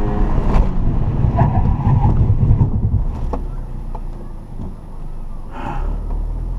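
Cabin sound of a Volkswagen slowing down: a low engine and road rumble that eases off about three seconds in, with a few light clicks and knocks.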